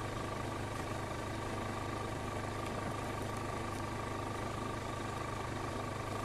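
Steady mechanical hum with a constant high-pitched whine running under it, unchanging throughout, like an idling engine.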